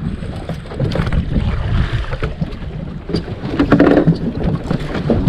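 Fishing boat at sea: a steady low rumble of the boat and wind on the microphone, with scattered knocks and a louder stretch about four seconds in.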